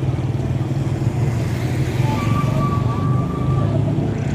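A small engine idling steadily, a low hum with a fast, even pulse. A thin high tone sounds for over a second about two seconds in.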